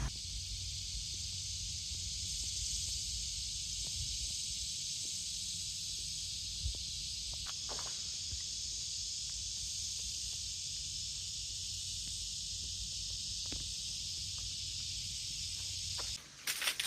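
Steady, high-pitched chorus of insects with a low rumble beneath it, cutting off suddenly near the end.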